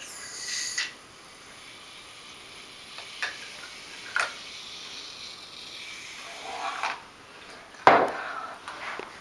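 Brief hiss at the start, then scattered light rubbing and clicking of objects being handled, with one sharp knock near the end.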